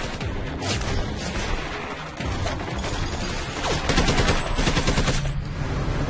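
Heavy automatic gunfire: a belt-fed machine gun firing long rapid strings of shots amid other gunfire, at its densest and loudest about four to five seconds in.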